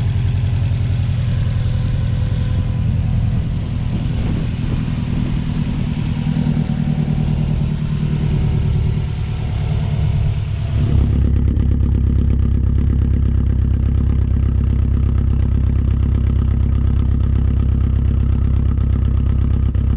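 Turbocharged car engine idling steadily, with a fine hiss in the first few seconds; the sound turns lower and fuller about halfway through. The idle is being checked for a vacuum leak, suspected at a loose hose by the blow-off valve.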